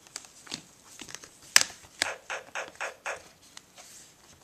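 A string of short clicks and scraping rustles, the sharpest about a second and a half in, then several more at about three or four a second.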